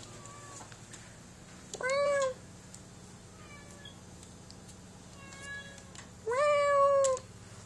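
Domestic cats meowing: a short meow about two seconds in and a longer, louder one near the end, each rising at the start, with a few faint calls between.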